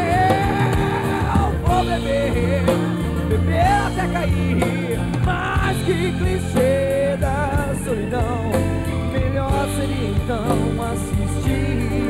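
Rock band playing live in an acoustic set, with acoustic guitars, bass, keyboards and drums. A lead melody line bends and wavers over the top.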